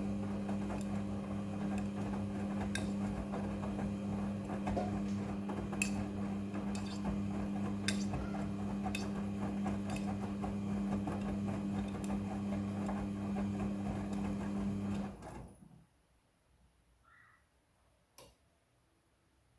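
Midea front-loading washing machine running with a steady hum and scattered light clinks, then cutting off suddenly about three-quarters of the way through, leaving near silence with one faint click.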